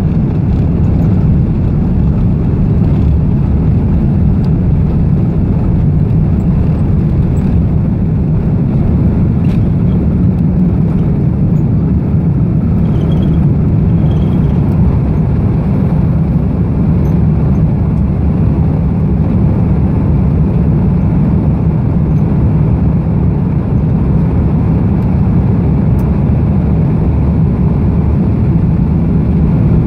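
Airbus A330's Rolls-Royce Trent 700 turbofans at takeoff power, heard from inside the cabin over the wing: a loud, steady engine noise with a deep rumble through the liftoff and initial climb.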